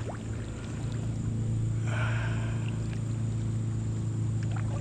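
Small boat motor running steadily with an even low hum. A brief rushing noise comes about two seconds in.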